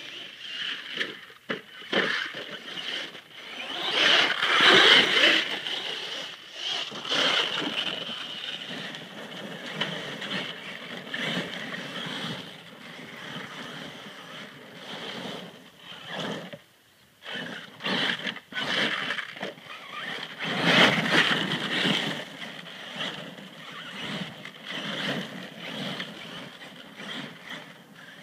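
HPI Savage Flux electric RC monster truck running on a 6S LiPo battery, driven over grass and gravel. Its brushless motor whines steadily and surges in two louder bursts of acceleration, about four seconds in and again around twenty seconds.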